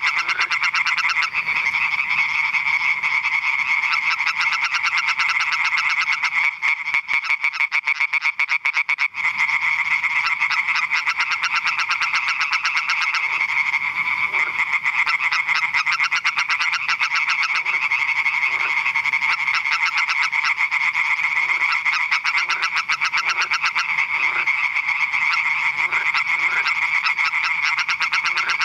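Male European tree frog (Hyla arborea) calling with its vocal sac inflated: a loud, fast, unbroken run of pulsed notes, with two short breaks about a quarter of the way in.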